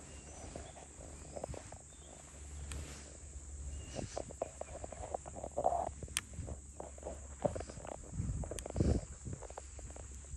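Steady high-pitched insect chorus of jungle crickets, with scattered rustles and knocks.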